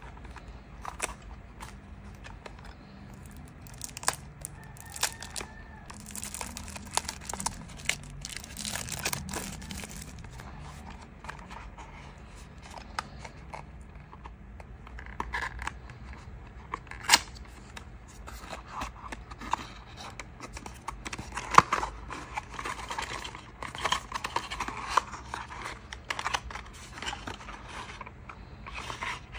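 Plastic shrink wrap crinkling and tearing as it is peeled off a small cardboard box, with many sharp crackles and clicks. Near the end, the cardboard box is opened and its inner tray slid out.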